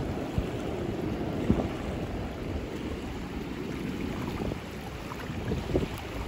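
Wind gusting over the microphone, with small waves lapping in shallow lagoon water; a steady rush with a few brief louder buffets.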